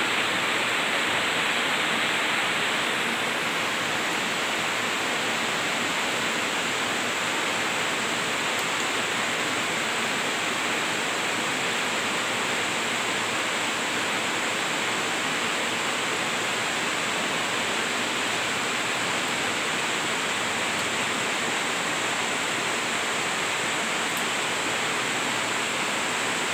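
Heavy rain falling steadily, an even hiss with no breaks, slightly louder in the first couple of seconds.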